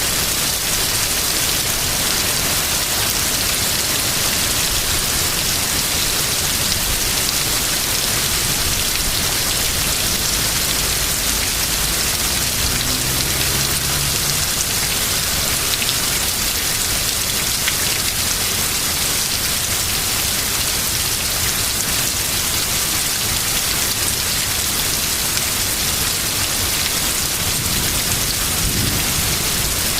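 Heavy rain pouring down steadily as a continuous hiss.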